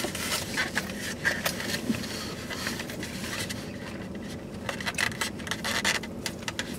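Plastic forks scraping and tapping in takeout food containers, with irregular clicks and scratches, over a steady low hum inside the car cabin.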